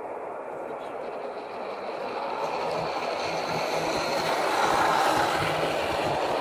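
A train running along the track, getting louder over the first five seconds or so, with a regular clatter of wheels.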